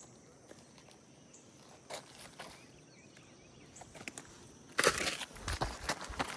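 A quiet background with a few faint clicks, then about five seconds in, loud footsteps start, a dense run of crackling steps.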